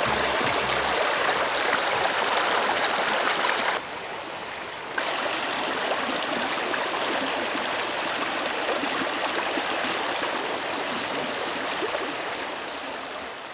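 Fast taiga creek rushing over rocks, a steady loud rush of water. It drops away for about a second around four seconds in, then returns and fades slightly near the end.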